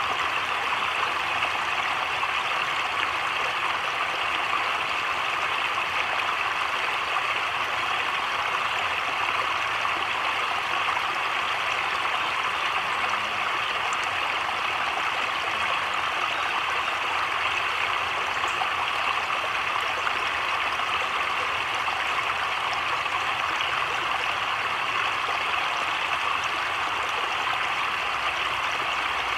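Heavy rain falling on a creek's surface and the leafy woods around it: a steady, even hiss with no thunder.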